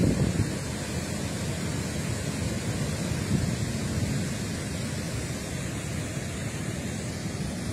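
Steady, deep rush of water pouring through an open dam spillway.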